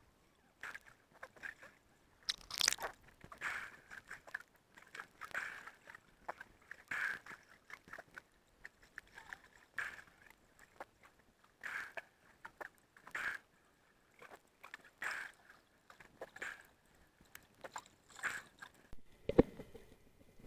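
Underwater sound picked up by a waterproof action camera: short muffled crackles and knocks of water and movement, coming in bursts every second or two, with a sharper burst about two and a half seconds in.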